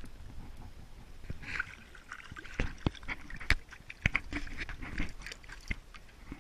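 Water splashing and sloshing at the surface as a hooked trout thrashes beside the boat, heard through a camera at the waterline, with several sharp knocks, the loudest a little over halfway through.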